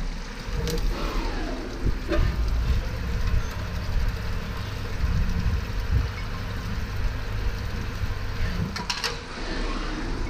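Automatic drilling and chamfering machine running a cycle on valve lifters: steady spindle and machine noise with coolant spraying, a tone falling in pitch over the first two seconds, and a few sharp clicks, one near the start, one about two seconds in and a pair near the end.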